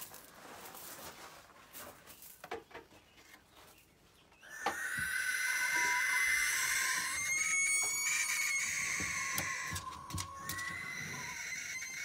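Barn owl giving a long, raspy hissing screech that starts about four and a half seconds in, breaks off briefly near ten seconds, then starts again.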